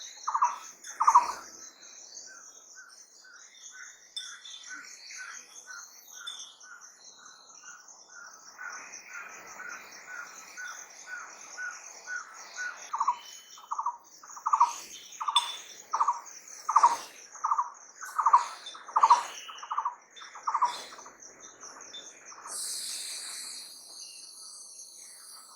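A bird calls a long run of evenly repeated single whistled notes, about two a second. In the middle stretch a second, fainter and faster series of higher notes takes over. A steady high insect trill runs underneath throughout, and a harsher high insect buzz starts near the end.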